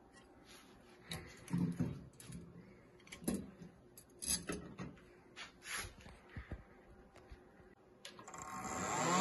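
Scattered knocks and rattles as metal fan housings and their cables are handled, then about eight seconds in two Sanyo Denki San Ace 172 12 V fans start up, their whine rising steadily in pitch and getting louder as they spin up.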